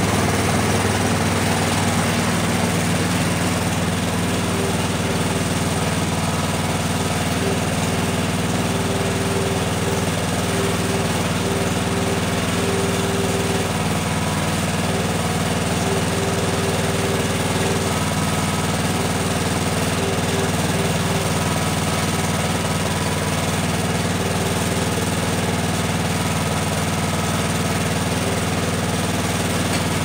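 Engine of a Wood-Mizer LT15 portable band sawmill running steadily at an even, unchanging level.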